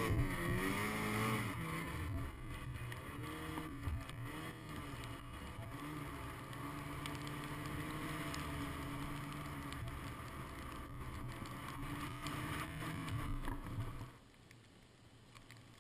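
Ski-Doo snowmobile engine running under throttle through deep powder, its pitch rising and falling as the throttle is worked. About fourteen seconds in the engine sound drops off sharply, leaving a low hiss.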